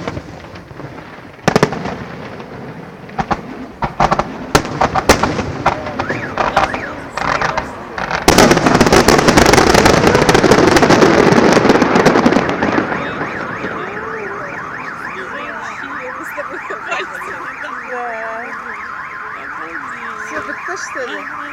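Fireworks going off: separate sharp bangs, then a loud, dense burst of rapid crackling and bangs for several seconds as the finale peaks. As it dies away, a car alarm sounds with a fast repeating warble.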